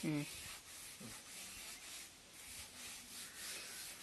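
A chalkboard eraser rubbed back and forth across a blackboard in repeated strokes, wiping off chalk writing.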